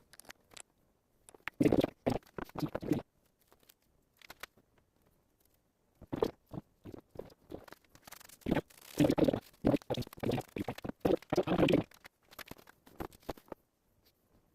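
A metal chuck key working a lathe chuck: irregular clusters of short clanks, knocks and scrapes, with quiet gaps between them.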